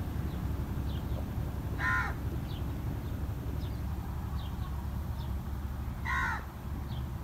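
A crow cawing twice, one short harsh call about two seconds in and another about six seconds in, with faint chirps of small birds and a steady low background rumble.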